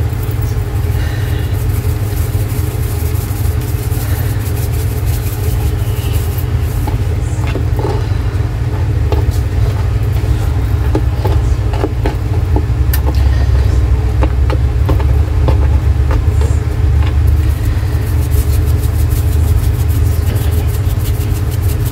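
A steady low machine hum, growing a little louder about halfway through, with scattered faint light clicks.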